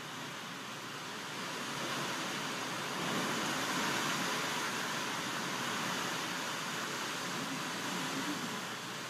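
Hurricane wind gusting through trees, a loud steady rushing that swells about two seconds in and holds.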